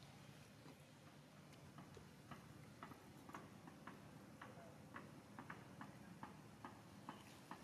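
Faint, irregular clicking, a few clicks a second from about two seconds in: a baby macaque chewing leaves.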